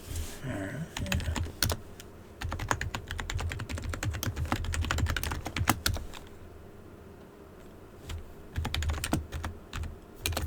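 Typing on a computer keyboard in quick runs of keystrokes. The typing stops for about two seconds past the middle, then starts again.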